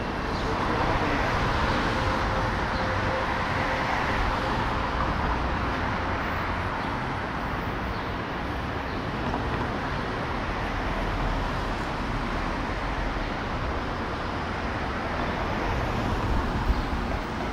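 Steady city street traffic noise from cars on the road, a little louder in the first few seconds.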